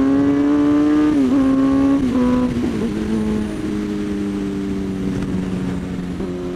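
2007 Suzuki GSX-R 750 K7's inline-four engine running under way. Its pitch climbs slowly, dips briefly twice about one and two seconds in, then holds lower and steady, with wind rushing over the microphone.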